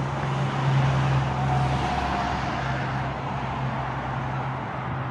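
Street traffic noise with a steady low engine hum, swelling as a vehicle passes about a second in.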